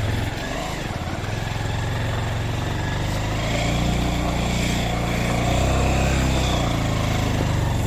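Motorcycle engine running under way on a rough track. The engine note gets stronger about halfway through.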